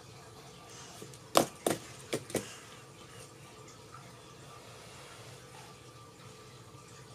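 Four sharp clicks or taps in quick succession about a second and a half in, the first the loudest, over a low steady room background.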